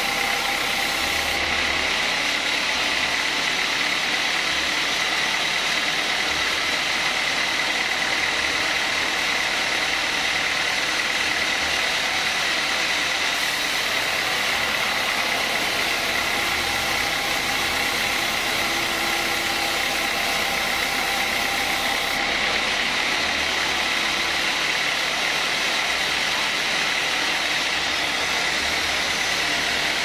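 Sawmill band saw cutting lengthwise through a teak log as it is pushed through the blade: a steady high whine over the continuous noise of the blade and motor.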